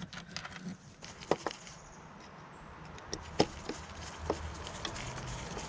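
Scattered light clicks and taps of a screwdriver working the mounting screws of a mass airflow sensor as it is seated in its plastic intake housing.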